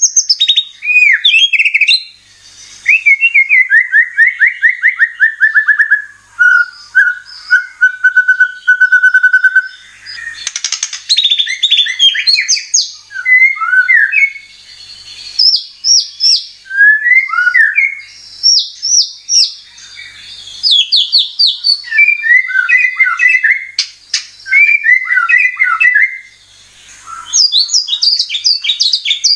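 White-rumped shama (murai batu) singing loudly, a varied song of fast whistled note series and trills, one phrase after another with short pauses between them.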